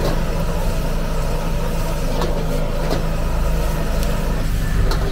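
Gas wok burner running with a steady low roar under a wok of stir-fry sizzling, with a metal ladle clinking and scraping against the wok a few times.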